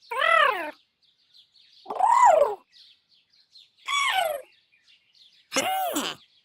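Cute robot droid vocalizations from the 'Bleep' sound library, in its 'grasps the idea' set, expressing dawning understanding. Four short chirping calls about two seconds apart, each sweeping up and then down in pitch; the third mostly falls.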